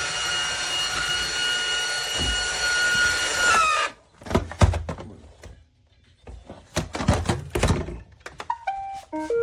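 iRobot Roomba Vac Essential robot vacuum running with a steady, whining motor hum that cuts off suddenly about four seconds in. A series of knocks and thuds follows, then a few short electronic beeps falling in pitch near the end.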